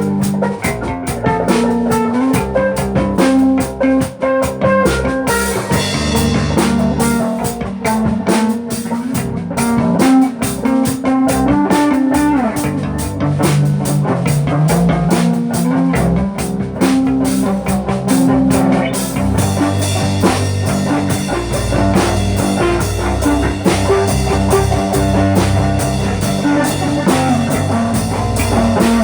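A rock band playing an instrumental passage: electric guitar over a drum kit with moving low notes underneath. Cymbals come in about five seconds in, and the playing fills out further near the twenty-second mark.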